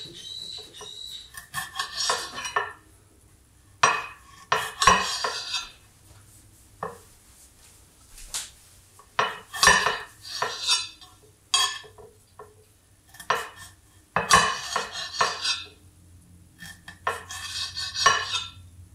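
Kitchen knife dicing a tomato on a hard black plate, the blade clacking against the plate in short runs of strokes with pauses between.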